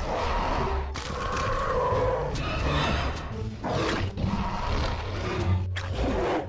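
Growling, roaring creature sound effects for an animated dragon, layered over background music, with a few brief breaks.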